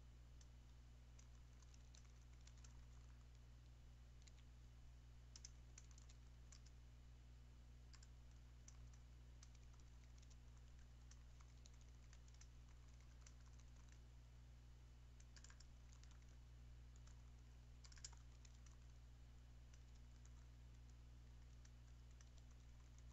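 Faint computer keyboard typing in irregular bursts of keystrokes, over a steady low hum.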